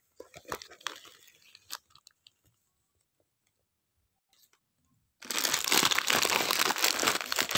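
Gift wrapping paper being handled and torn open: scattered crackles, a pause of a few seconds, then about five seconds in a loud, continuous crinkling and tearing of paper and plastic packaging as the contents are pulled out.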